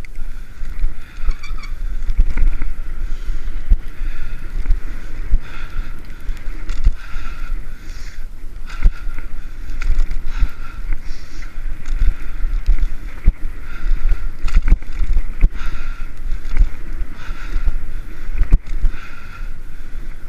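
Wind buffeting the microphone of a GoPro Hero 3 on a moving bicycle, a continuous low rumble, with frequent knocks as the Giant Escape 2 rolls over bumps in the paved trail.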